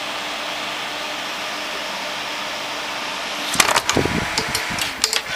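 Scythe Slipstream case fan running at 1900 RPM, a steady rush of air with a faint hum, a loud fan for its size. About three and a half seconds in, the fan is handled and moved, with a clatter of knocks and rattles.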